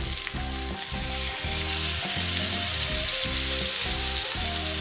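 Fish fillet frying in hot butter in a pan, a steady sizzle. Beneath it runs a low pattern of tones, pulsing evenly a few times a second.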